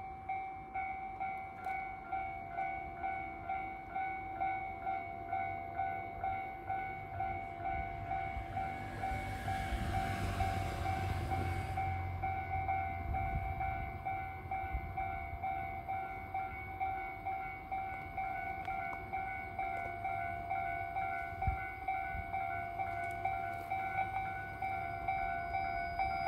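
Level crossing alarm ringing, a repeating electronic ding about one and a half times a second. Under it, a KiHa 141 diesel railcar's low engine rumble builds as the train approaches, with a brief rush of noise about ten seconds in.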